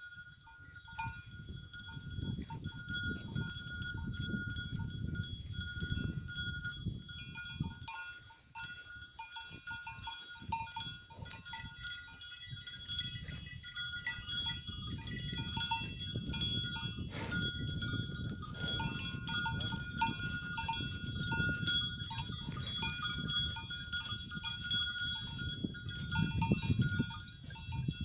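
Bells on grazing livestock clinking irregularly, with several ringing pitches, over a low rumbling noise that rises and falls.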